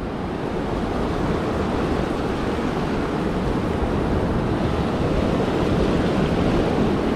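Steady rush of surf foaming in and out over the shallow beach wash, with some wind on the microphone.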